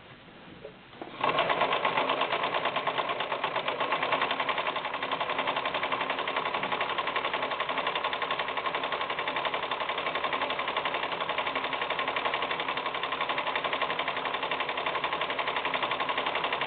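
A mid-1980s Brother VX sewing machine starts about a second in and runs steadily with fast, even stitching. It is sewing a decorative banner stitch (pattern 9).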